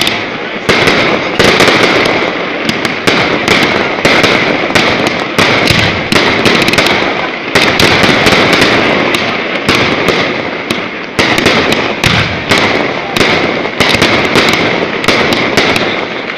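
Fireworks display at close range: rapid, near-continuous bangs and crackling from aerial shells bursting, several reports a second with no let-up.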